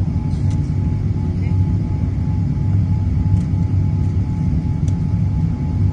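Airliner cabin noise during the climb just after takeoff: jet engines and airflow giving a steady low rumble, with a faint steady tone above it.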